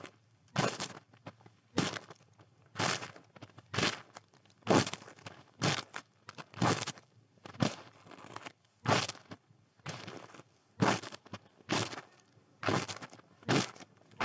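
Footsteps crunching in snow at a steady walking pace, about one step a second.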